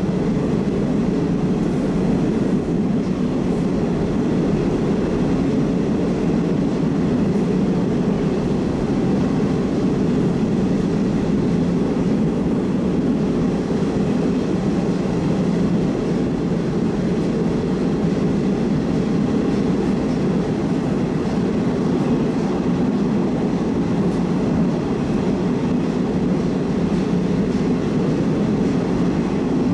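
Moscow Metro Oka-series subway train running at steady speed between stations, heard from inside the car: an even, unbroken low rumble of wheels and running gear.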